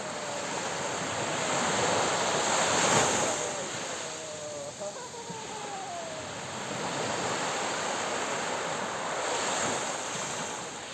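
Ocean surf breaking and washing ashore, swelling twice: loudest about three seconds in, then a second, longer surge later on.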